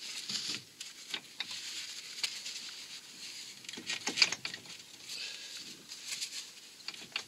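Scattered light clicks, taps and rustles of gloved hands working a car's front wheel hub as the splined driveshaft end is fitted through the new wheel bearing, with a denser cluster of clicks about four seconds in.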